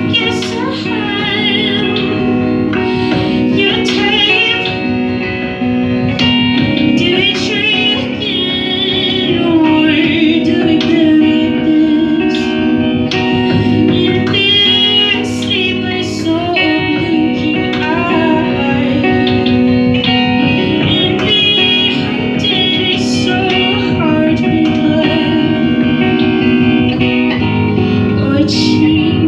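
Music: a voice singing over guitar accompaniment.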